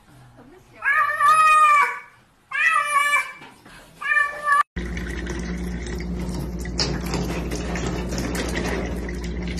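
A cat meowing three times, a long drawn-out call followed by two shorter ones. Then a steady hiss of running water with a low hum.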